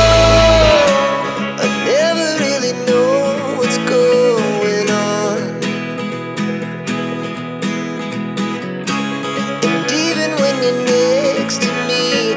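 Background music: a song with a singing voice over acoustic-sounding guitar, the deep bass dropping out about a second in.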